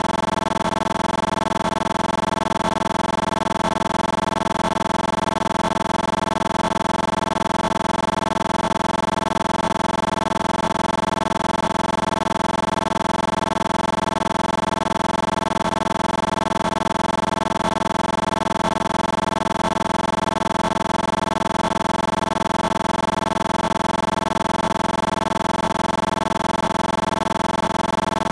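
A steady, unchanging drone made of several fixed tones, holding the same pitch and level throughout.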